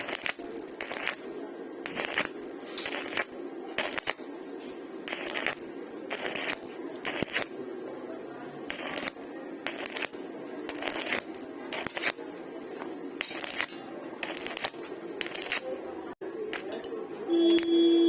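Repeated metallic clinks, about two a second, each with a short ring, over a steady hum. Near the end a louder steady tone begins.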